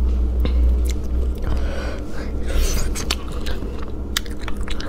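Close-miked eating of spicy braised rabbit head: meat pulled apart with the fingers and chewed, with scattered sharp clicks and a short burst of mouth noise about two and a half seconds in, over a steady low hum.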